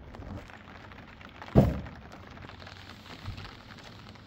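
A single heavy thump about a second and a half in, with a fainter knock near the end, over a steady background hiss.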